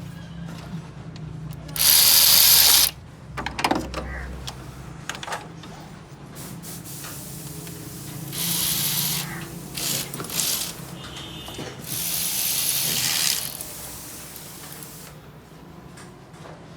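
Mechanic's hand tools working on a car engine: ratchet clicks and metal clinks, broken by three loud bursts of hiss lasting about a second each, over a low steady hum.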